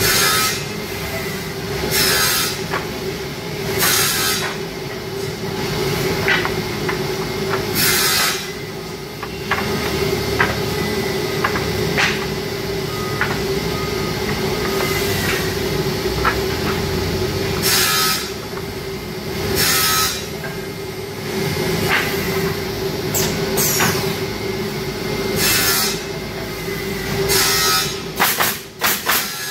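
Automatic wood pallet nailing machine at work: a steady machine hum, with short bursts of air hissing every few seconds and scattered clicks and knocks. Near the end comes a quick run of sharp strikes as the pneumatic nail guns fire into the boards.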